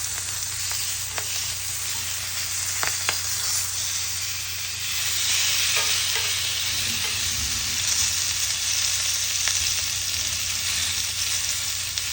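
Food sizzling on a hot grill: a steady frying hiss that grows louder about five seconds in, with a few light clicks and pops.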